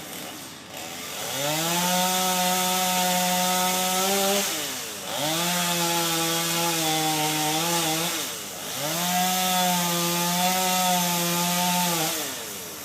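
Chainsaw revving up and cutting into a drought-killed tree three times, each cut held at a steady high pitch for about three seconds, the engine dropping back between cuts.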